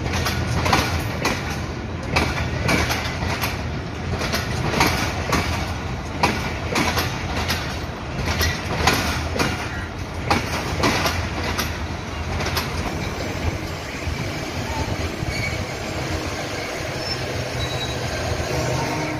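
Pakistan Railways passenger coaches rolling past: wheels clicking over the rail joints on top of a steady rumble. The clicks thin out after about thirteen seconds, leaving a smoother rumble.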